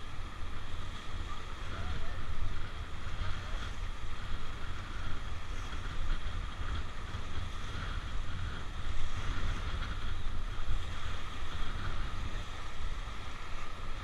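Rushing whitewater of a river rapid around an inflatable raft, a steady noise that rises and falls, with a heavy low rumble of wind buffeting the microphone.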